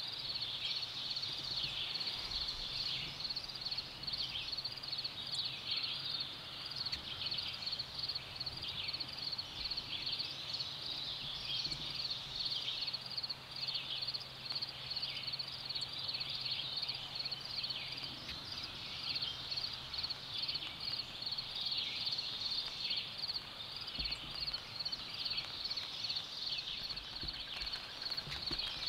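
A steady, high-pitched chorus of many small calling animals, pulsing fast and continuous throughout.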